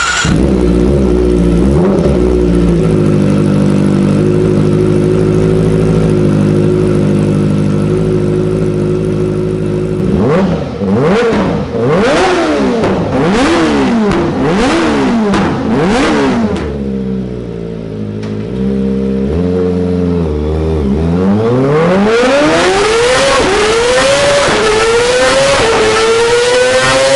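Kawasaki Ninja ZX-25R's 249 cc inline-four engine idling steadily, then revved sharply several times in quick succession. It is then run up through the gears on a dynamometer: each gear a rising pull cut by a short drop at the shift, climbing to a high scream.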